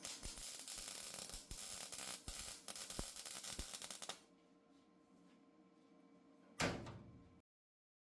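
Welding arc crackling as sheet metal is tack welded, running for about four seconds. After a quieter stretch comes a second short, loud burst, then the sound cuts off completely.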